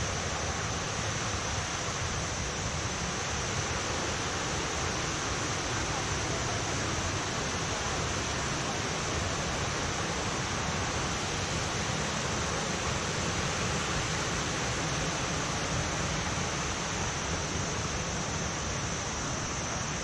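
Steady rushing of water from small waterfall cascades and pools, an even, unbroken noise with a constant high hiss over it.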